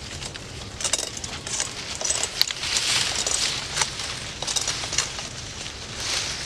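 A small sharp hand-forged blade cutting thorns off date palm fronds: irregular sharp snicks and clicks among the rustle of the fronds, with one especially sharp click about two and a half seconds in.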